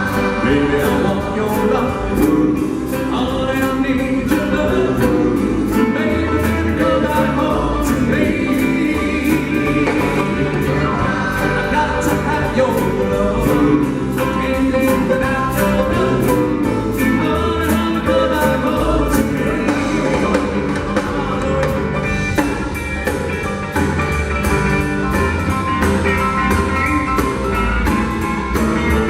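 Live vocal group singing a doo-wop song over a backing band with drums and guitar, a steady beat.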